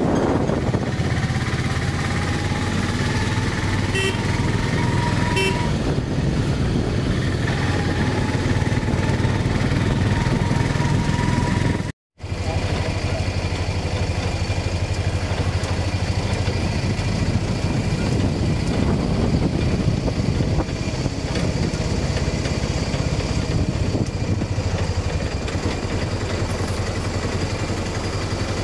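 A motor vehicle's engine running on the move, its pitch rising as it picks up speed, with two short horn toots about four and five and a half seconds in. The sound drops out for a moment about twelve seconds in.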